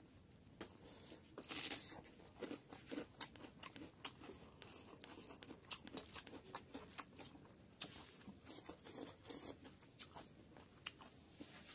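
Close-up eating sounds: a person chewing chicken curry and rice eaten by hand, wet mouth sounds made up of many short sharp clicks coming several a second.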